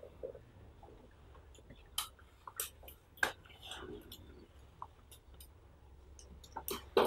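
Scattered clicks and taps on a laptop's keys, with a few sharper clicks about two to three seconds in, over a low steady room hum.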